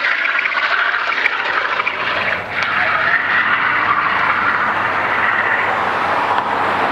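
A car drifting: its engine held at high revs and its tyres skidding sideways on asphalt, a steady, loud roar.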